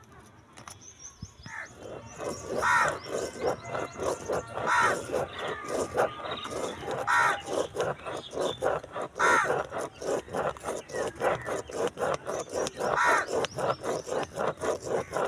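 A pen scratching on paper as it drives a plastic Spirograph wheel around a toothed ring. It makes a rapid, rasping run of strokes that swells roughly every two seconds.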